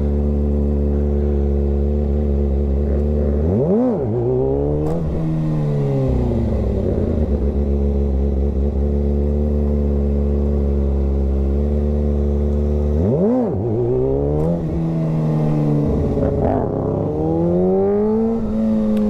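Kawasaki ZX-6R sportbike's inline-four engine running at a steady speed under the rider. About four and thirteen seconds in, sharp throttle blips spike the revs and drop them back, and near the end the revs climb more slowly.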